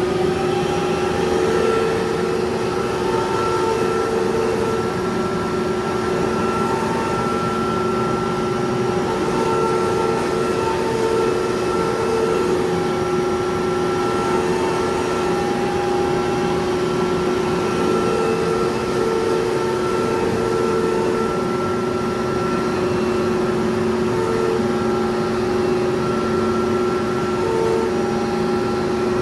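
CNC machine running: a steady motor hum with extra pitched motor tones that switch on and off every second or two as it moves.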